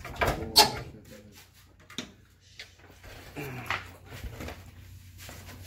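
Car hood being lowered slowly by hand, with a few knocks and handling noises as it comes down, over a faint steady low hum.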